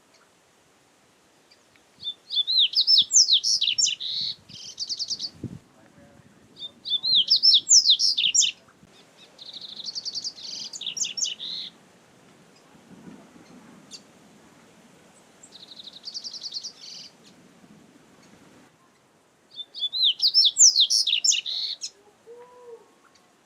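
Double-collared seedeater (coleiro) singing: five phrases of rapid, high twittering notes, each lasting one to two seconds, separated by short pauses.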